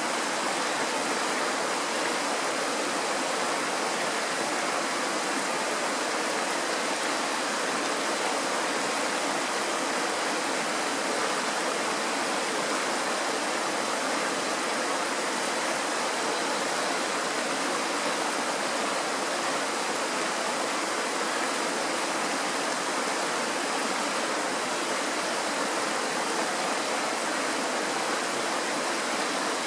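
Kirowa Woda, a Tatra mountain stream, rushing over slate rocks in a small white-water cascade: a steady, unbroken rush of water heard close up.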